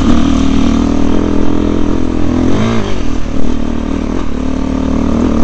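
Off-road trail motorcycle engine running steadily, heard close up from the rider's helmet camera, with a brief rise and fall in revs about halfway through.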